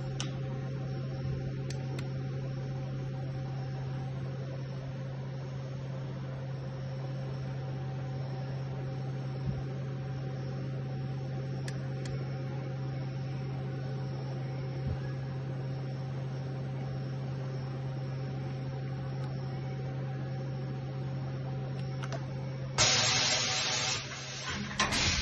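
Hardinge VMC 600P vertical machining center standing under power with a steady electrical hum and a few faint clicks. Near the end a loud hiss breaks in twice as the spindle gives up its tool for a tool change.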